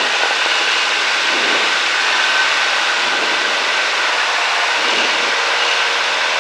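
Cessna 172's piston engine and propeller running steadily at full takeoff power during the takeoff roll, heard inside the cabin.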